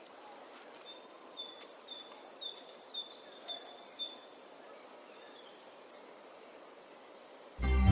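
A bird chirping outdoors: short high notes alternating between two pitches, about two a second, then a few falling calls and one held note, over a faint background hiss. Music starts just before the end.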